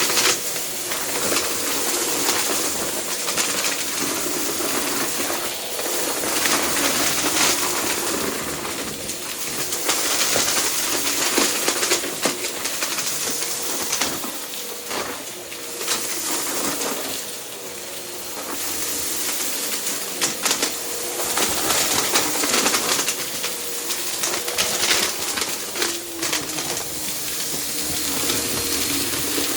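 Vacuum cleaner running with a steady motor whine and rushing air, with many small clicks and rattles of debris being sucked up.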